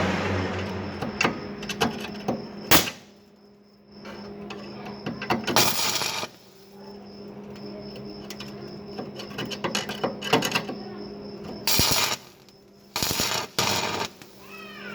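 Stick (electrode) welding on a car's thin sheet-metal fender: a steady electrical hum, with several short crackling bursts of the arc as tack welds are struck, and scattered metallic clicks and taps between them.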